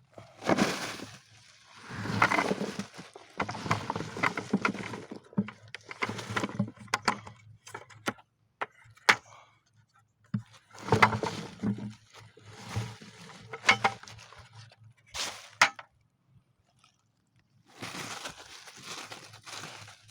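Rustling and knocking as freshly dug potatoes are handled and sorted through in a container, in irregular bursts with sharp clicks between short pauses.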